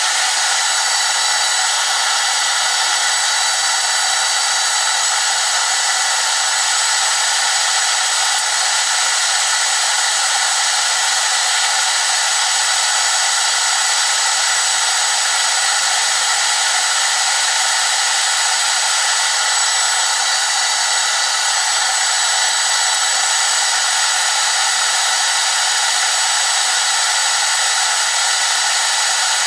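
Metal lathe running through a turning cut on a metal rod, its motor-generator drive giving a steady whine and hiss with several fixed high tones.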